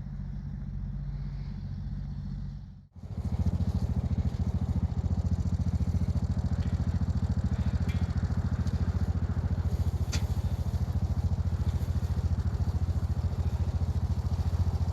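A motor running steadily: a low, even, rhythmic rumble. It cuts out for a moment about three seconds in, then carries on a little louder.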